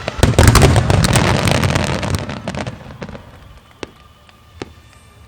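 A wide starmine firework barrage: a dense run of shell bursts bangs and crackles for about two and a half seconds, then fades. Two lone bangs follow, a little under a second apart.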